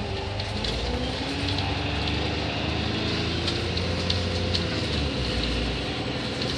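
Single-deck bus engine and drivetrain running under way, heard from inside the saloon, the pitch climbing over the first few seconds as the bus gathers speed. Small sharp rattles and ticks from the interior fittings come through over a steady low rumble.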